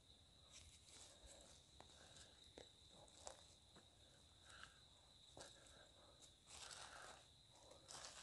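Near silence, with a thin steady high tone and a few faint scattered ticks.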